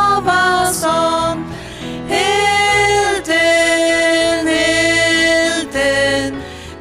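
Women's voices singing a Faroese hymn chorus in harmony over keyboard and electric guitar, with long held notes.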